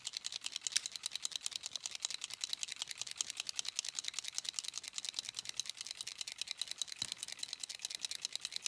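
A Scorch Marker wood-burning pen being shaken hard, its mixing ball rattling inside in quick, even clicks, several a second, to mix the burning fluid before use.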